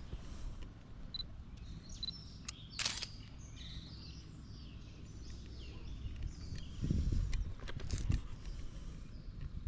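Quiet outdoor street ambience with small birds chirping, a single sharp click about three seconds in, and a low rumble about seven seconds in.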